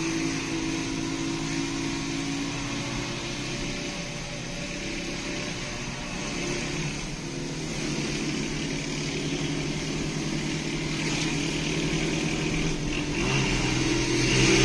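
Motorcycle engine of a kulong-kulong (motorcycle-drawn cart) running steadily while it tows a car, heard from inside the towed car, with road noise under it. Near the end the engine note rises and gets louder.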